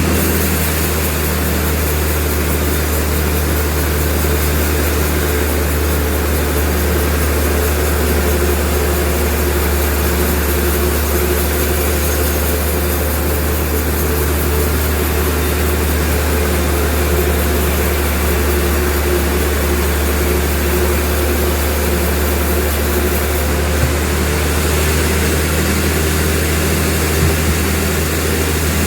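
Sawmill machinery running with a loud, steady low drone that holds unchanged, with a small knock near the end.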